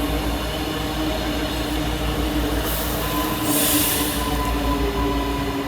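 Aurizon diesel locomotive 2350 running as it passes, with a steady engine drone over a low rumble. A short hiss comes about three and a half seconds in.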